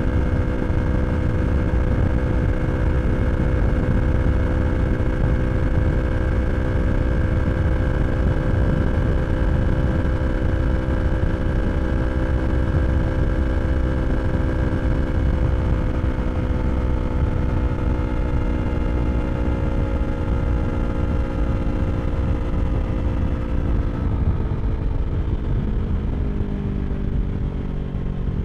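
Yamaha R3 parallel-twin engine through an Akrapovič slip-on exhaust, holding a steady engine speed at cruise. Over the second half its pitch slowly falls as the engine speed drops. A heavy low rumble of wind noise runs under it.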